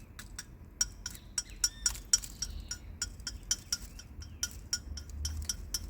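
Freshly fired white-clay tobacco pipe, still hot, being tapped and handled, giving a quick run of short, bright, ringing clinks. The ring is the sound of clay fired through to hard ceramic, which the maker takes as a sign that the firing worked.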